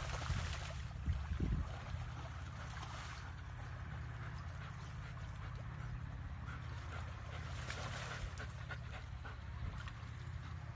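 Water sloshing and splashing as a dog swims through a shallow muddy ditch, heaviest in the first three seconds and again briefly near eight seconds, over a steady low rumble.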